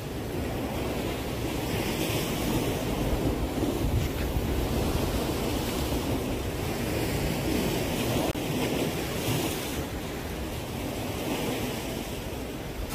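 Sea waves surging and breaking against a concrete breakwater, a steady wash of surf that swells and eases, with wind buffeting the microphone.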